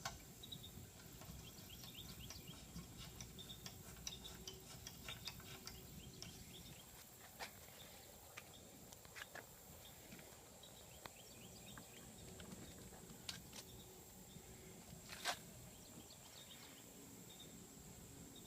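Near silence: faint background noise with scattered small ticks and short chirps, and one sharper click about fifteen seconds in.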